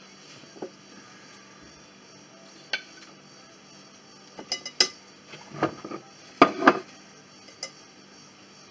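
Kitchenware clinking and knocking as a strainer, pitcher and plate are handled on the worktop. There are a few scattered knocks, then two denser clusters of clatter past the middle, which are the loudest.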